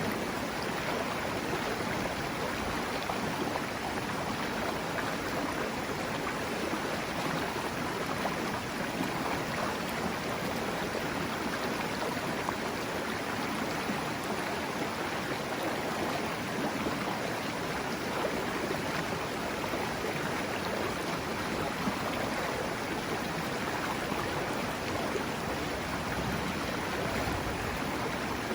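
Serio mountain river rushing steadily over rocks, an even roar of flowing water with no breaks.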